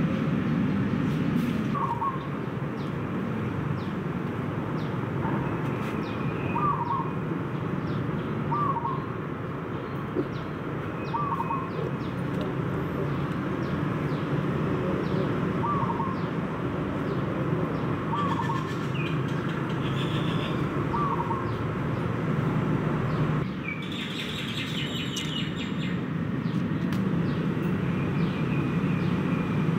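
Birds chirping outdoors: one bird repeats a short call about every two seconds, with a few other higher chirps now and then, over a steady low background noise.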